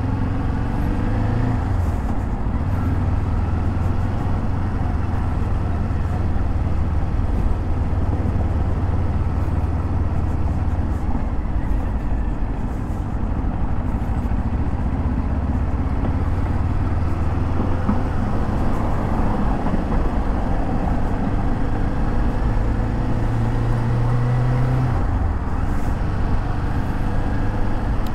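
Kawasaki Z400's 399 cc parallel-twin engine running while being ridden in city traffic, a steady low note that shifts in pitch with the throttle and rises briefly near the end before dropping back.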